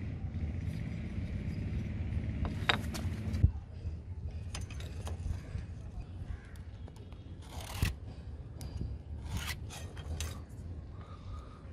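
Handling noise from a wooden block and a steel ruler and square being set down and shifted on concrete: a sharp knock about three and a half seconds in, then short scrapes and light taps over a low background rumble.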